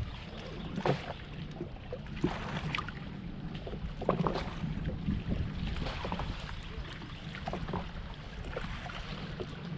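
Steady low rumble of open-water and boat noise aboard a small personal watercraft, with scattered light clicks and knocks.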